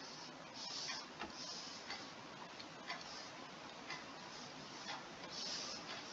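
A clock ticking about once a second, faint and steady. Soft hissy rustles come in between the ticks.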